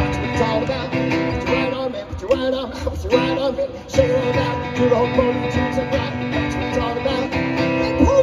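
Live acoustic guitar strummed with a singer's voice, played through PA speakers.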